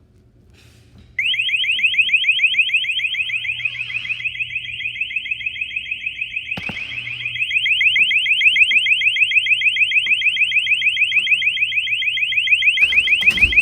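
STI emergency exit door alarm sounding: a loud, high-pitched warble of quickly repeating rising sweeps that starts abruptly about a second in and keeps going. A couple of sharp knocks are heard under it.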